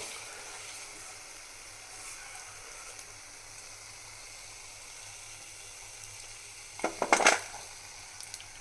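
Avalakki kaddi (flattened-rice snack sticks) sizzling steadily as they deep-fry in hot oil. There are a few sharp knocks about seven seconds in.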